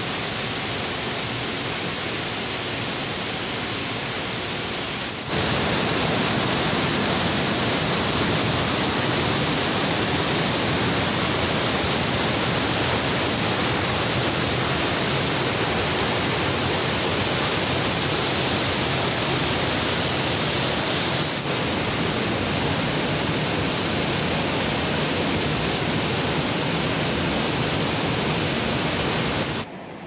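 Small waterfall and mountain stream rushing steadily over boulders into a pool. About five seconds in it gets louder, heard close up at white water churning over rocks.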